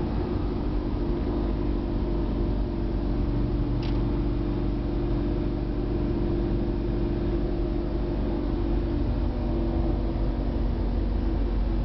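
2004 Lamborghini Gallardo's V10 engine and road noise heard from inside the cabin while cruising at a steady speed, the engine note holding even.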